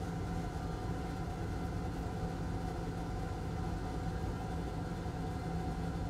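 Steady machine hum: a constant low drone with a fainter higher tone over a faint hiss, with no distinct clicks or knocks.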